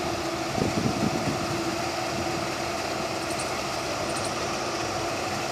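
Hira 985 combine harvester running, a steady mechanical drone with a constant hum. A few low thumps come about half a second to a second in.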